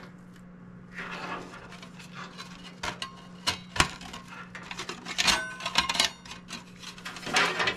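Plastic and metal parts of a PC power supply clicking, scraping and rattling as its stuck 120 mm cooling fan is tugged and pried at, with sharp clicks about 4 and 5 seconds in.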